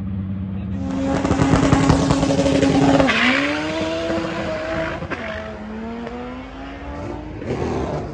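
A drag race car launching down the strip, its engine revving hard through the gears: the pitch climbs, drops at shifts about three and five seconds in, and climbs again as the car pulls away and fades. Other engines idle underneath.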